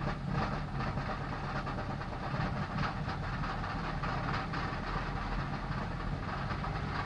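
Saab 9-3 engine running rough just after a cold start, the hard-starting fault the car shows every cold morning. A loose heat shield rattles irregularly over the engine.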